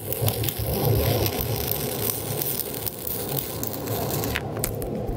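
Stick-welding arc of an E309L-16 stainless electrode crackling steadily as it lays a root bead in a carbon-steel-to-stainless T-joint, the rod burned down almost to its end. A few sharper snaps come about four seconds in.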